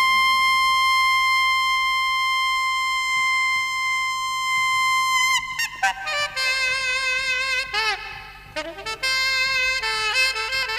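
Saxophone solo: one long held high note for about five seconds, then a run of shorter notes with bends and vibrato, easing off briefly about eight seconds in.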